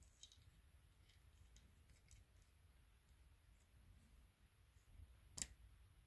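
Near silence, with faint ticks and one sharper click near the end as a frayed steel gear cable end is handled at a Shimano Tiagra rear derailleur.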